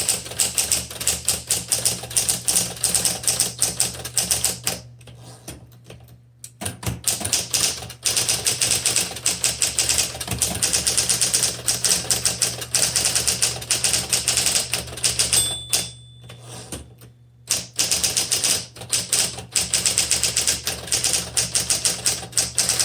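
1961 Smith Corona Electric 5 typewriter typing fast, a rapid stream of key and typebar strikes over the steady hum of its electric motor. There are two short pauses in the typing, one about five seconds in and one about sixteen seconds in, and a brief ring just before the second pause.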